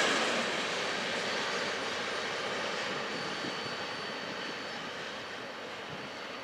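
Freight cars rolling on the rails, a steady rumble from the covered grain hoppers at the tail of the train, fading evenly as the last car pulls away.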